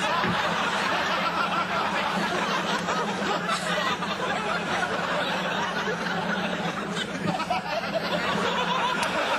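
Studio audience laughing steadily throughout.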